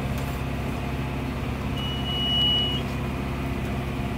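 Massey Ferguson 6615 tractor engine running steadily under load, heard inside the cab while pulling a John Deere 566 round baler. About two seconds in, a single high electronic beep sounds for about a second.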